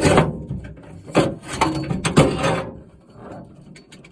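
Scraping and rattling from hands working inside a car door shell, in three short bursts, then fainter rubbing.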